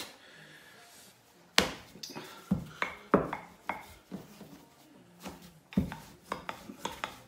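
Wooden rolling pin rolling out dough on a wooden worktop, with a series of irregular knocks and taps of the pin against the board; the sharpest comes about one and a half seconds in.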